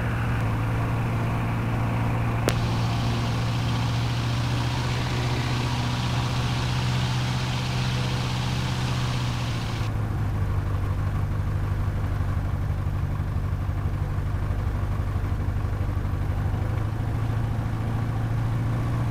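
Jodel DR1050 light aircraft's piston engine running steadily on the ground, heard from the cockpit, its sound changing about ten seconds in. The engine has a vibration that the pilot finds strange.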